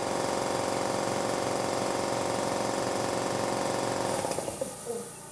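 Vertical-tank piston air compressor running loudly with a fast, even rattle, switched off about four seconds in and winding down within a second. Under it, and left alone at the end, the much quieter steady hum of an Eastwood QST-30/60 scroll compressor.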